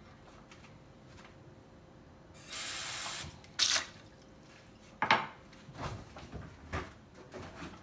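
Kitchen sounds: a tap runs briefly for about a second, followed by a sharp clack and a series of lighter knocks of kitchenware being handled.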